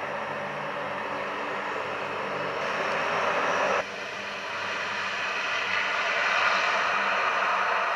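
Turboprop engines of a Lockheed KC-130J tanker running at low power on the ground, a steady drone with a low propeller hum. The sound drops suddenly a little under four seconds in, then slowly grows louder again.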